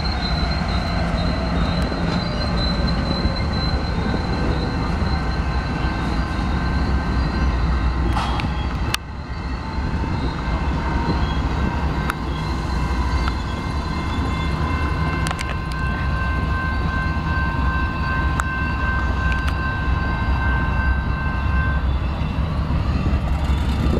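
BNSF freight train with diesel locomotives passing close by: a steady heavy rumble of engines and rolling wheels, with long high wheel squeals held over it and a few sharp clanks.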